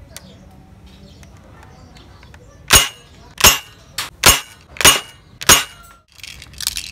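D'Cobra M15 spring-powered airsoft rifle fired five times in quick succession at a glass bottle. Each shot is a sharp snap, about two-thirds of a second apart, with a smaller click between the second and third.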